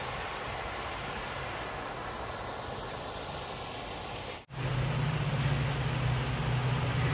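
Small waterfall splashing into a shallow stream, a steady rush of water. After a cut about four and a half seconds in, the water is a little louder, with a steady low hum underneath.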